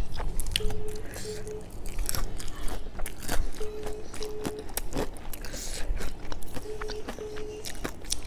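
Close crunching and chewing of crispy McDonald's fried chicken, with irregular crackles as the fried coating is broken off by hand and bitten.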